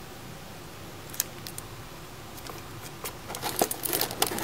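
Quiet room tone with a single light click, then from about three seconds in a run of small clicks and rustles as a hand handles a quilted leather handbag.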